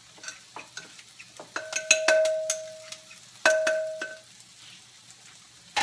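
Double-bladed salad chopper cutting grilled chicken in a glass bowl: scattered clicks and knocks of the blades. About two seconds in, and again a second and a half later, the blades strike the bowl and leave it ringing.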